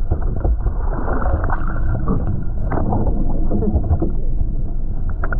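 Steady rumble of wind and water noise on an open fishing boat at sea, with scattered knocks.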